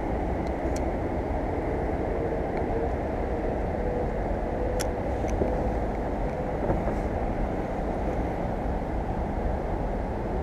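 Steady low rumble of road traffic on the bridge overhead, with a single faint click about five seconds in.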